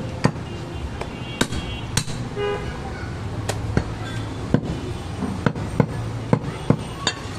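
Heavy curved cleaver chopping goat meat on a round wooden log block: sharp, irregular chops, roughly one or two a second. A vehicle horn toots briefly about two and a half seconds in, over street background noise.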